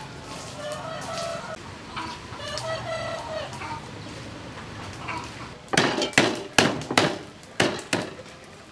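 A rooster crows twice, each call about a second long, in the first half. Near the end comes a run of about six sharp, loud knocks over two seconds.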